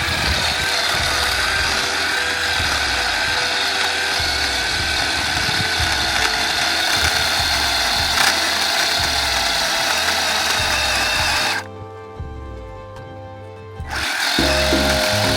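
Chainsaw cutting into a thick dead bush trunk, the footage played back sped up, under elevator music. Near the end the saw drops out for about two seconds, leaving only the music, then comes back.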